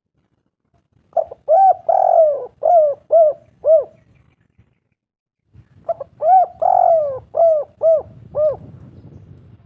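Spotted dove (tekukur) cooing: two song phrases a couple of seconds apart, each a quick run of about six rounded coos with one longer slurred note near the start.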